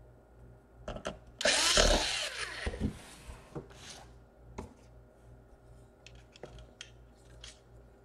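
Laptop case parts being handled and fitted by hand: a couple of clicks, then a loud rasping, rattling burst lasting about a second, followed by scattered light taps and clicks.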